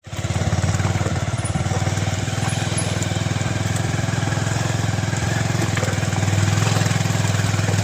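Motorcycle engine running steadily at low speed, with a rapid, even beat of firing pulses.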